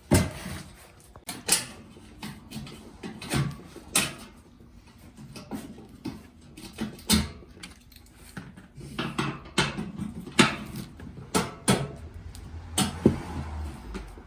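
Irregular knocks and clanks of hand tools and metal parts, roughly one a second, while a classic Ford Bronco's front grille is being taken off.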